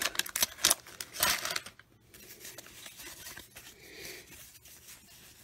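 Paper wrapper of a baseball card pack torn open and crinkled, sharp crackling for the first second and a half, then a faint rustle of cards being handled.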